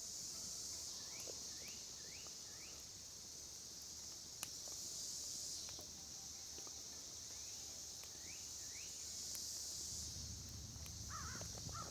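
Outdoor insect chorus: a steady high buzz that swells and fades every few seconds. Over it come short rising bird chirps, four in a quick run near the start and three more later, and a single sharp click about halfway.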